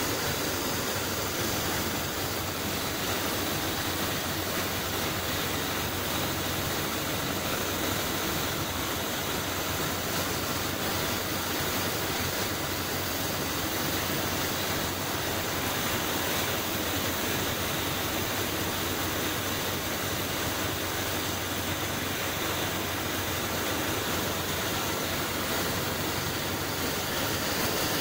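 Steady rushing hiss of compressed air from a gravity-feed spray gun spraying paint, with the steady air noise and low hum of the paint booth's ventilation underneath.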